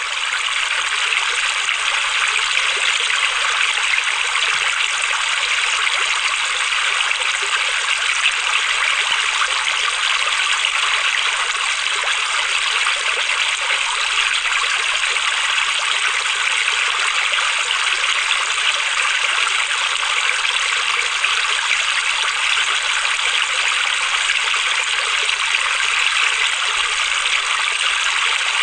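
Steady, unbroken rush of flowing water, like a stream.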